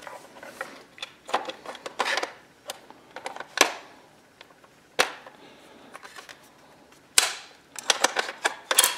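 Bolt of a Mauser bolt-action rifle being opened and drawn out of the receiver: a series of separate sharp metallic clicks and clacks, with a quick cluster of them near the end.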